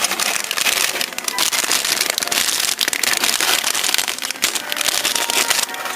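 Plastic bag crinkling and crackling continuously as plastic model kit parts on their sprues are handled in it.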